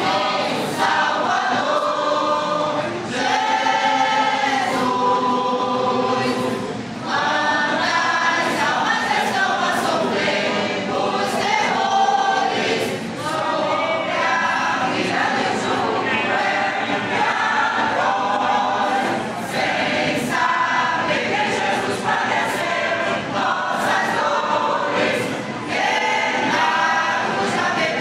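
Church choir of mixed voices singing a gospel hymn in Portuguese, in continuous phrases with short breaks between them.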